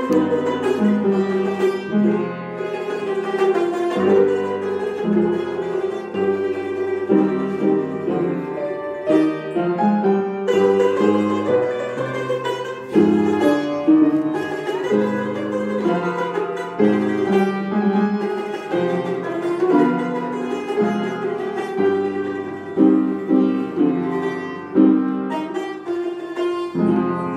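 Azerbaijani tar played solo, a continuous run of plectrum-plucked notes.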